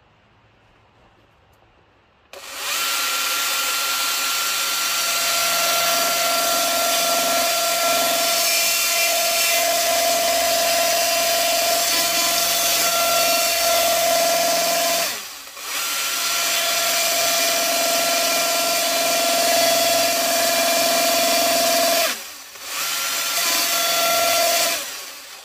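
Small battery-powered chainsaw switching on about two seconds in and cutting into a wood carving block with a steady electric whine. It lets off briefly twice, once in the middle and once near the end, and stops just before the end. The wood is dry enough to make the bar tip smoke.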